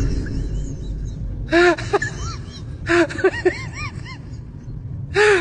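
Several people's voices giving short high-pitched cries in quick bursts, about a second and a half in, around three seconds in and again near the end, over a steady low rumble.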